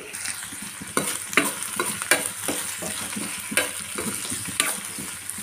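Spatula scraping and tapping around a stainless-steel kadai, in a rapid, even run of strokes, while chopped onion, carrot, green chillies and curry leaves fry in hot oil with a steady sizzle underneath.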